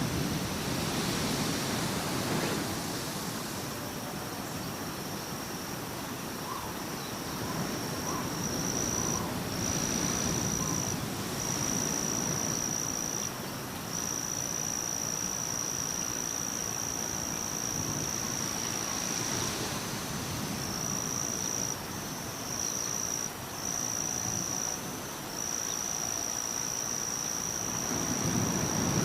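Insect trilling on one high, steady pitch, breaking off briefly and starting again several times, over a steady rushing noise that swells and fades.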